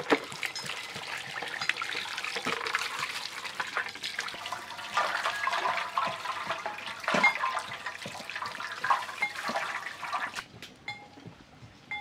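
Water from a hose running over a plucked duck carcass and splashing into a metal tray as it is rinsed and turned by hand. The flow stops about ten seconds in.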